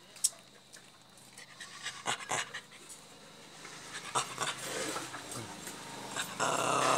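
Small long-haired Bhote (Himalayan) dog panting, louder in the last few seconds, with a few sharp clinks of its metal chain lead in the first half.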